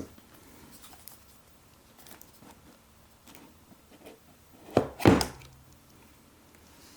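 Cardboard phone box being handled and opened: faint rustling and light contact, then two sharp knocks close together about five seconds in.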